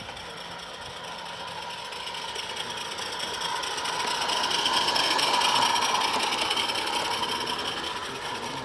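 Small 16mm-scale live-steam garden-railway locomotive and its coaches running past: steam exhaust and wheels on the rails, growing louder to a peak about five seconds in and then fading as the train moves away.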